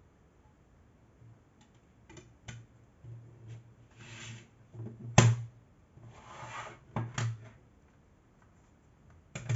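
Plastic CD jewel case being handled and closed: a series of small plastic clicks and rubbing, with one sharp snap about five seconds in and a few more clicks after.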